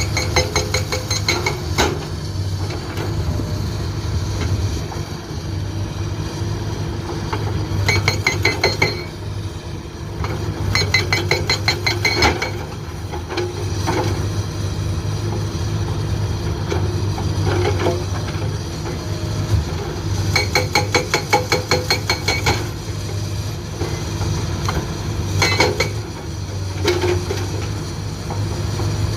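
Hydraulic breaker (Soosan SB81) on a Komatsu PC200-8 excavator hammering rock, in several short runs of rapid, evenly spaced metallic blows lasting a second or two each. The excavator's diesel engine runs steadily underneath.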